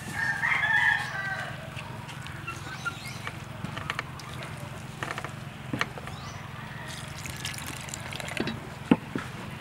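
A wooden spoon scrapes and knocks against a stainless steel bowl as flour and water are stirred into a dough, with water poured in and trickling near the end. A chicken calls briefly about half a second in, the loudest sound here.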